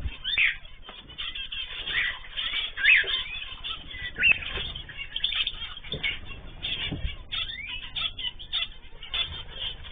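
Cage birds chirping and calling in many short, overlapping notes, with a few louder rising calls, and a couple of brief low thumps.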